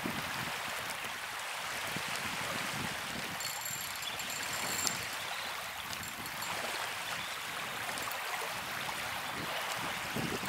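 Small waves washing steadily against the shore.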